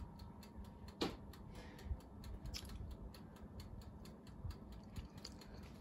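Faint, steady fast ticking of a mechanical timer, about four ticks a second, just set for the cheesecake's hour of baking. There is a single sharper click about a second in.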